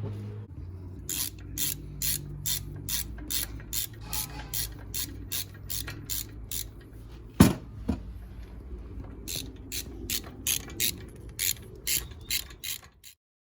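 Hand ratchet wrench clicking in steady strokes, about three clicks a second, as a bolt is worked. There is one loud knock about halfway through, and the clicking stops suddenly near the end.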